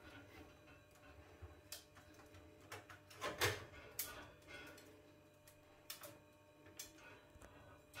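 Faint, irregular clicks and taps of cockatiels' claws and beaks on a stainless-steel sink and wire dish rack, with one louder knock about three and a half seconds in.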